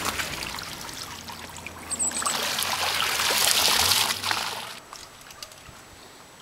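Water pouring and splashing from a wire basket of netted minnows being emptied into a floating holding crib. It swells about two seconds in and dies away a little before five seconds.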